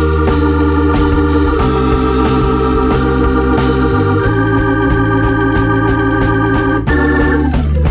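Instrumental background music: held chords over a steady bass line.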